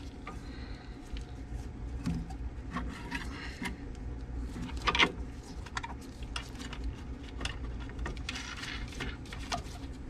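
Gloved hands handling parts inside a Beckett oil burner: scattered small clicks and scrapes of metal parts, with one sharper knock about five seconds in, over a steady low hum.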